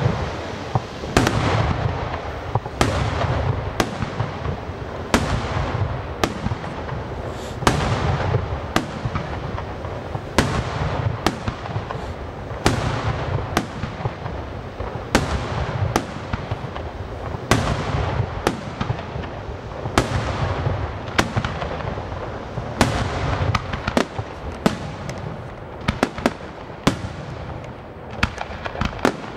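Aerial fireworks display: shells bursting one after another, a sharp report every second or so, with dense crackling between them from crackling stars and glitter falling through the sky.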